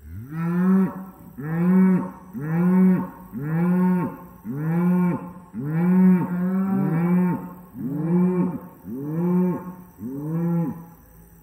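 A cow mooing about ten times in quick succession, each moo short and rising then falling in pitch, roughly one a second, close to the microphone.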